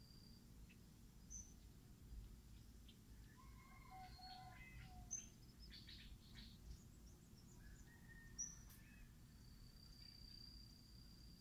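Faint birdsong: scattered short high chirps and a cluster of whistled notes in the middle from several birds, with a thin, steady high tone near the end over a low background rumble.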